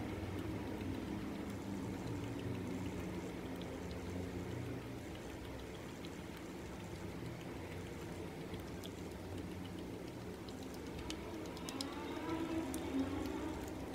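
Sharpie marker tip dabbing repeatedly into soft slime, making faint sticky ticks that come more often in the last few seconds, over a low steady hum.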